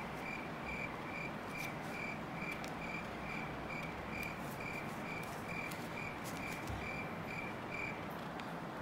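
An insect chirping in an even rhythm, a little over two short high chirps a second, over a steady background hiss; the chirping stops about eight seconds in.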